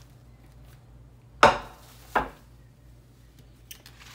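A glass baking dish is set down on a granite countertop: two sharp clunks less than a second apart, the first louder.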